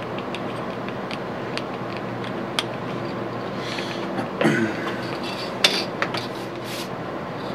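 Aerosol can of black spray paint hissing in short bursts, about three over a few seconds, as it is sprayed into engraved witness marks. A steady hum runs underneath, with a few light ticks early on and a brief squeak partway through.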